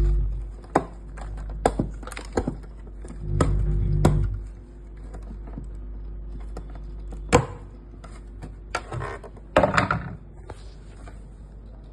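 Scattered knocks and taps on an M Studio MSP-20 Pro percussion pad being worked on, with two short bursts of low buzzing hum, one at the start and one about three and a half seconds in.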